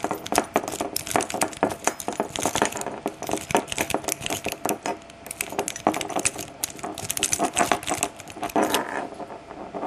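Snake rake being worked rapidly in and out of the keyway of a Master Pro Series 6321 padlock: continuous fast, irregular metallic clicking and scraping as the pin tumblers are raked.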